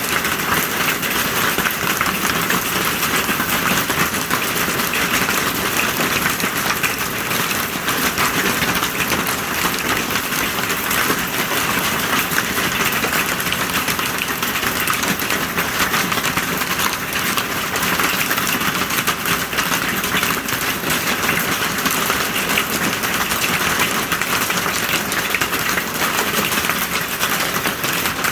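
Hail pelting down hard: a dense, steady clatter of countless small impacts.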